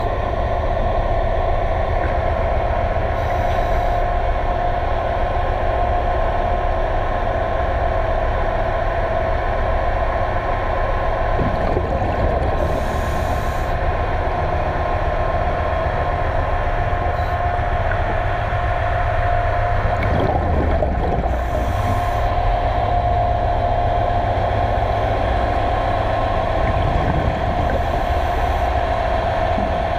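Steady machinery hum picked up underwater, with a constant mid-pitched tone over a low rumble and brief faint hisses every several seconds.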